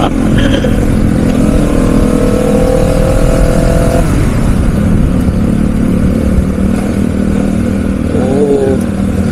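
Honda CBR 250 sport bike engine pulling at road speed under a heavy rush of wind. Its pitch climbs for a couple of seconds as it accelerates, then it runs steadily.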